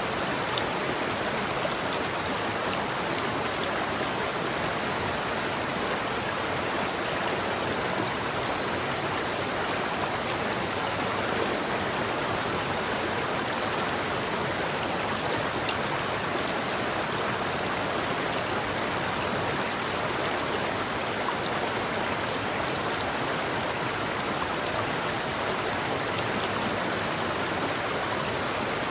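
River water flowing steadily over rocks, a continuous even rushing. A few faint, brief high notes sound now and then above it.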